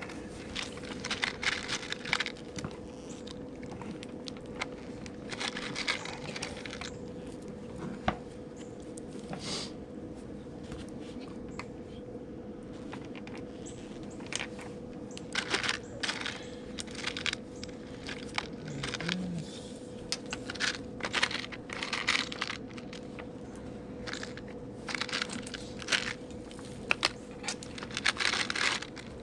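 Hands rummaging through parts bins: irregular bursts of rattling, clicking and crinkling as small hardware and packaging are moved around, over a steady hum.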